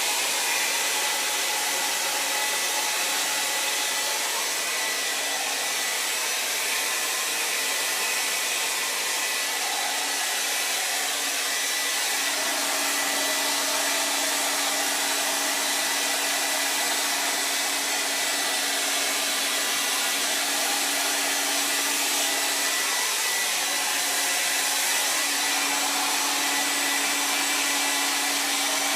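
Revlon hair blow dryer running steadily, an even hiss of blown air, while drying hair. A low steady hum comes in about twelve seconds in.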